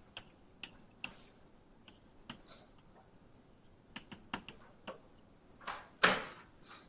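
Chalk writing on a blackboard: a string of short, sharp ticks as the chalk strikes and scratches the board, a few per second. About six seconds in comes a louder, longer rushing scrape.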